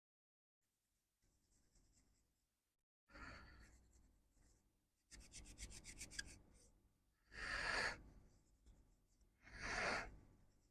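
Scrubbing and rubbing on a liquid-damaged laptop logic board during cleaning, with a quick run of rapid scratches about halfway and two louder swishes near the end.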